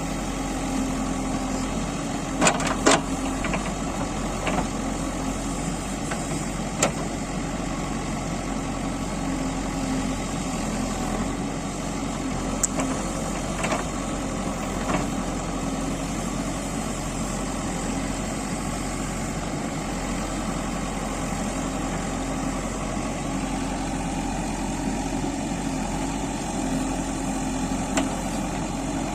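Backhoe loader's diesel engine running steadily at a low, idle-like speed, with a few short sharp knocks scattered through, two close together a few seconds in.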